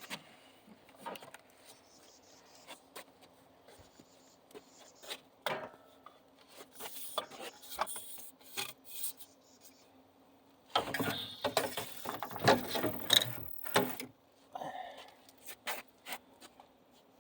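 Scattered rubs and clicks, then about three seconds of dense scraping and rubbing a little past the middle, over a faint steady hum.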